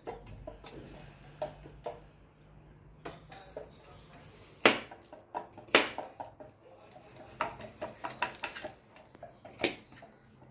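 Kitchenware being handled: scattered knocks and clinks of a pot and utensils, a few louder knocks about halfway through and near the end.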